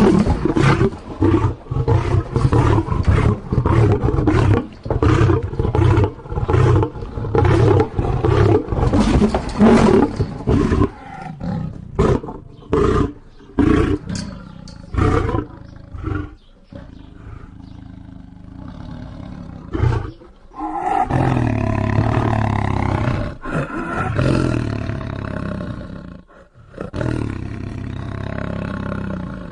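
Lion roaring: a rapid series of short, deep roars and grunts, then longer, drawn-out roars in the second half.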